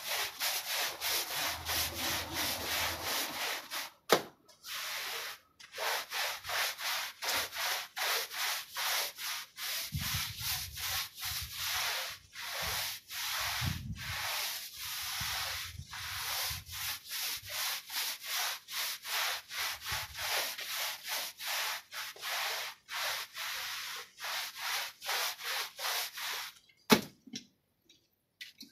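Stiff-bristled push brush scrubbing a wet, soapy rug: a rasping scrub of about two strokes a second. A sharp knock comes a little after four seconds and another near the end, the loudest moments, and the scrubbing stops shortly before the end.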